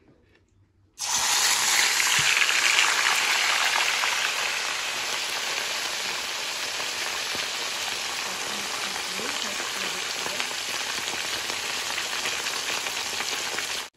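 Whole fish frying in a pan of hot oil, a loud, even sizzle that starts abruptly about a second in, is loudest for the next few seconds and then settles to a steady sizzle.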